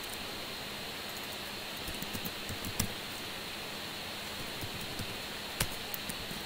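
Computer keyboard typing: a few scattered key clicks over a steady hiss from the microphone.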